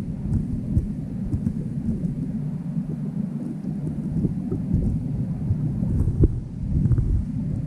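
Low, muffled underwater rumble picked up by a submerged GoPro, with a few faint ticks scattered through it.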